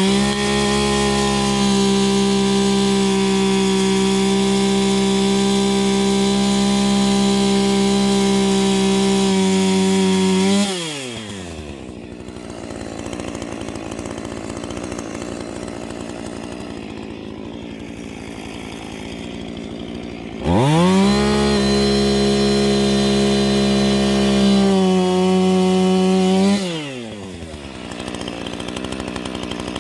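Two-stroke chainsaw held at full throttle for about ten seconds, falling back to idle. About twenty seconds in it revs up again for about six seconds, then drops back to idle near the end. This is the sound of firewood being cut.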